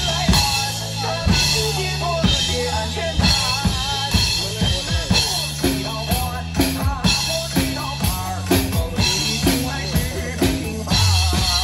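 Live band music: a drum kit keeps a steady beat with bass drum and snare, under sustained bass notes and a wavering melody line.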